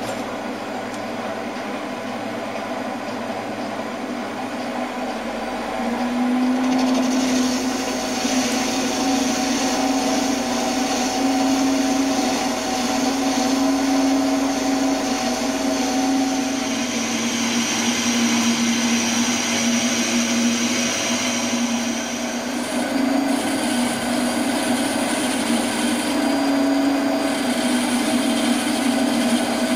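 Optimum bench metal lathe running, its spindle turning a large round workpiece while the tool takes a cut. A steady hum with a whine over it, getting louder about six seconds in.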